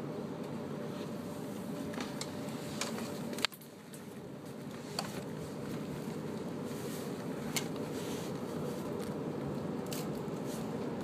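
Running noise heard inside a VB2N commuter coach: a steady low rumble of the wheels on the track, with scattered sharp clicks. The loudest click comes about three and a half seconds in, after which the rumble briefly drops and builds back.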